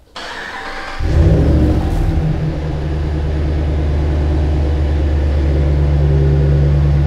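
Ram 1500 pickup's V8 engine being cranked by the starter for about a second, then catching with a brief flare of revs and settling into a steady idle.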